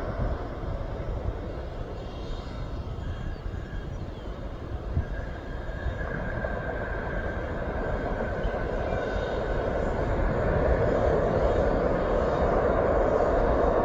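Distant jet airliner engines rumbling across the airfield, growing louder about ten seconds in, with a faint high whine that drifts slightly down partway through.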